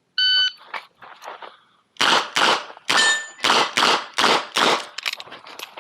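Shot-timer start beep, then about a second and a half later a rapid string of about seven 9mm shots from a Smith & Wesson 929 revolver, roughly two a second, with steel targets ringing between them.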